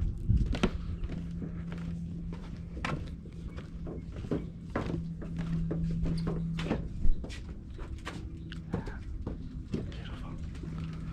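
Footsteps and knocks on a wooden boardwalk, irregular and uneven, with one sharper knock about seven seconds in. A steady low hum runs underneath.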